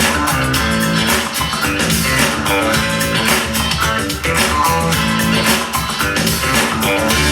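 A guitar song with bass played through an Anker Soundcore portable Bluetooth speaker (Motion Boom or Motion+) in an audio test.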